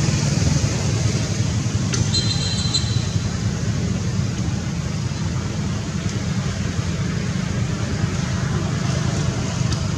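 Steady low rumble of road traffic, with a brief high chirp about two seconds in.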